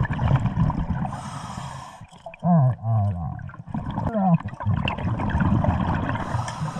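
Scuba diver breathing through a regulator underwater: a hiss of inhaling about a second in and again near the end, with low bubbling and gurgling of exhaled air between.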